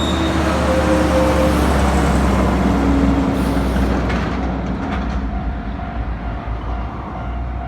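Heavy double-trailer truck passing close by: a deep engine rumble with tyre and road noise that builds to its loudest about three seconds in, then fades.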